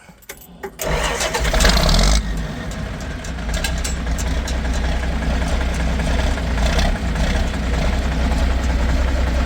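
Straight-piped John Deere 4630 tractor's turbocharged six-cylinder diesel starting. It catches about a second in, runs loudest for a second or so, then settles into a steady idle.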